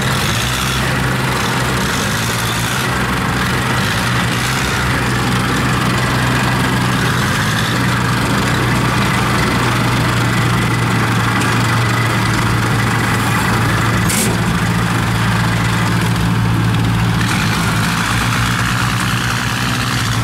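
Diesel engine of a tracked rice-hauling tractor running steadily at low revs as the machine creeps forward, with one brief click about fourteen seconds in.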